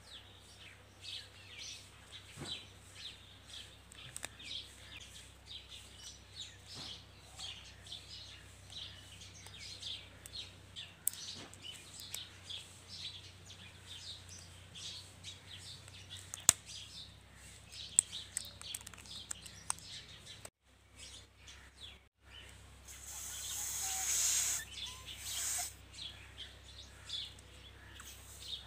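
Birds chirping in the background, short high chirps coming a few times a second. Two sharp clicks fall in the middle, and a loud rushing hiss lasts about two seconds near the end.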